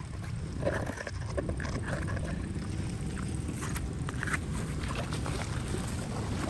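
Floodwater rushing steadily into a storm drain, with a few brief, faint higher sounds over the flow.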